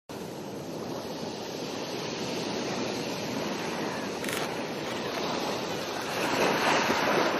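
Sea waves washing on a shore, a steady rushing that swells louder about six seconds in.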